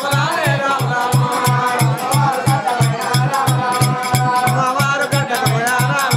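Telugu devotional folk song sung into a microphone, the voice wavering and gliding, over a fast, steady drum beat of about three to four strokes a second with a sharp jingling percussion on each stroke.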